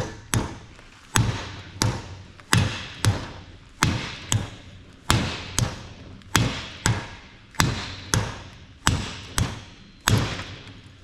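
Repeated hammer blows on the steel drive pinion nut, driving the pinion shaft out of a differential carrier. The blows come in steady pairs, a hard strike followed by a lighter one, about every second, each with a brief metallic ring.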